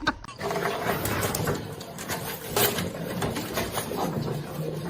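Cat growling: a low, rough, continuous growl.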